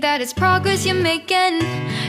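Background music: a pop song with a sung vocal line over acoustic guitar.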